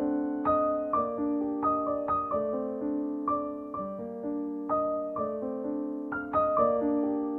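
Background keyboard music: single notes struck about twice a second, each left to ring and fade.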